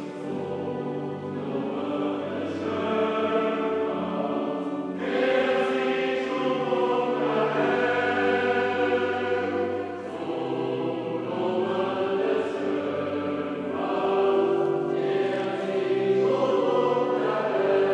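A choir singing slow, sustained chords, the harmony shifting every few seconds and swelling louder about five seconds in.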